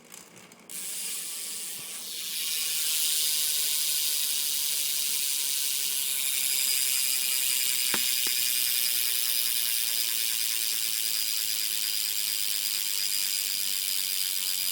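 BMX rear hub freewheeling as the wheel spins, its pawls ratcheting too fast to count into one steady, loud buzz. It starts about a second in and gets louder after about two seconds, with a couple of faint clicks near the middle. It is really loud for a two-year-old hub.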